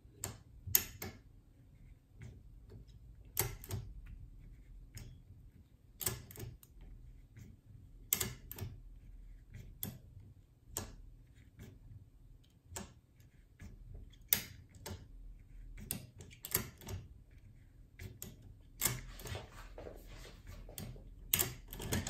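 Sharp metallic clicks from the wafers of a JUWEL 3x3 double-bit safe lock being picked with a decoder tool under tension, coming singly or in close pairs every second or two; the clicks are what the picker listens for to find each wafer. A short spell of handling rustle comes near the end.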